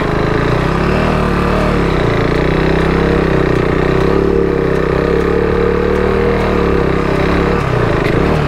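Motorcycle engine running at fairly steady revs, its pitch dipping and rising a little as the bike labours through wet sand, then falling away near the end.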